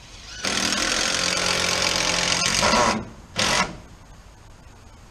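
Cordless drill driving a screw into a wooden board overhead: one long run of about two and a half seconds, then a short final burst to seat the screw.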